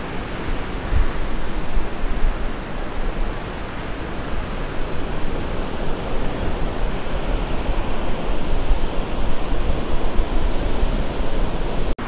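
Wind buffeting the microphone in gusts, with surf rushing steadily beneath it.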